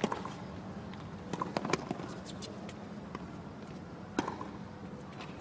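Tennis rally on a hard court: sharp pops of the racket strings striking the ball, with the ball's bounces, coming right at the start, in a cluster about a second and a half in, and once more about four seconds in, over a steady arena hum.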